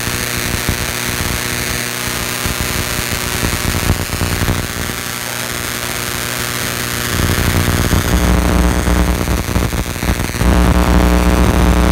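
High-voltage rig running with a steady electrical hum and hiss. It steps up louder and heavier in the second half, with the deepest hum near the end.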